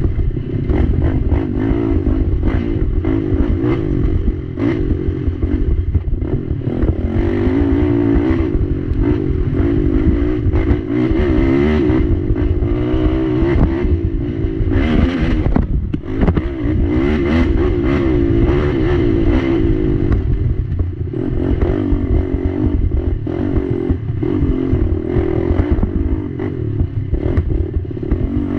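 Race ATV engine running hard, its pitch rising and falling constantly with the throttle and easing off briefly about halfway through. The chassis clatters as the quad crosses rough trail.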